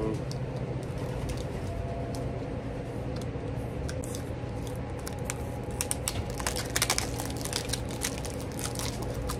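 Sealed plastic packaging being torn and crinkled open by hand, in scattered crackles and clicks that are thickest about six to seven seconds in.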